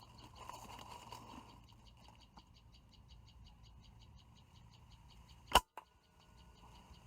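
A PCP air rifle fires once about five and a half seconds in, a single sharp crack followed by a fainter click. Before the shot, a fast, even chirping runs in the background at about eight pulses a second.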